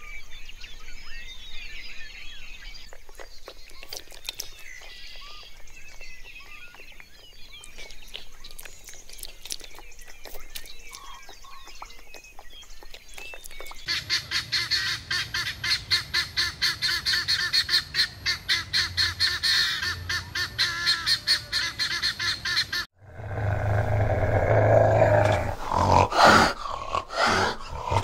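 Small birds chirping faintly, then about fourteen seconds in guineafowl calling loudly in a fast, even cackle of about four calls a second. After a sudden cut near the end, a fishing cat growls loudly.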